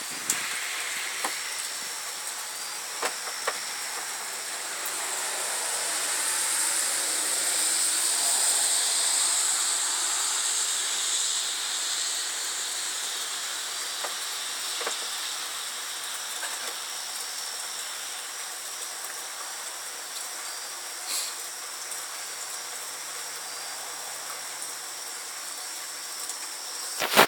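Steady rain hissing at night, with a swell of louder hiss that builds and fades about 5 to 12 seconds in. A few single sharp ticks sound over it.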